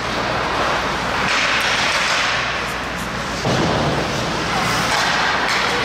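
Ice hockey rink noise during play: an even wash of skating, stick and spectator sound echoing in the arena. A heavier, deeper layer comes in suddenly about three and a half seconds in.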